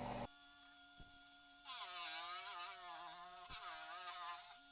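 A small power tool's motor whining faintly, its pitch wavering up and down, with a steady hiss, starting after a second and a half of near silence broken by a single click.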